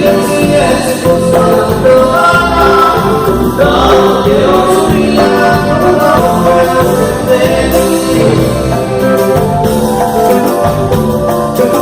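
Live cumbia band playing loudly with singing over a steady beat.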